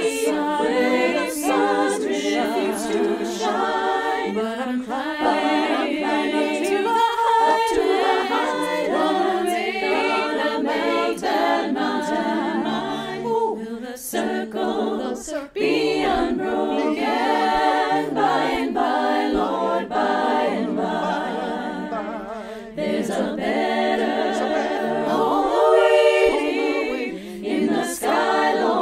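A cappella choir singing: several voices together with no instruments.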